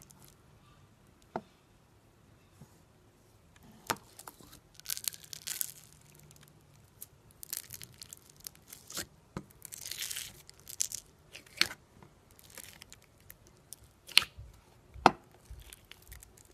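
Clear sequin-glitter slime in a plastic tub being poked and pressed with a finger, giving bursts of sticky crackling and several sharp pops and clicks.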